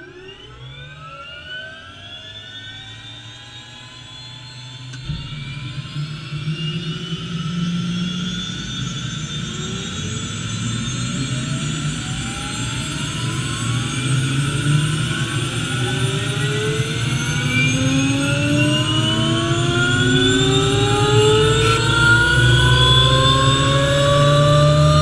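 MD500 helicopter's Allison 250 turboshaft engine starting and spooling up: a whine climbs steadily in pitch and grows louder throughout, with a deeper rumble joining about five seconds in.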